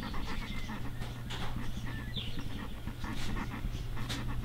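A dog panting in short, quick breaths over a steady low hum.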